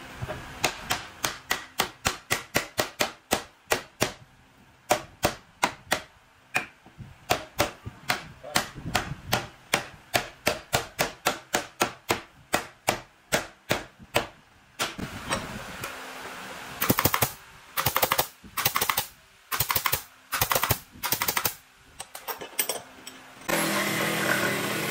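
Sharp wooden knocks, about two a second, as the top rail of a wooden bed railing is tapped down onto the glued tenons of its balusters. After a pause come several short bursts of a power tool, and near the end a jigsaw starts cutting through a wooden board with a steady buzz.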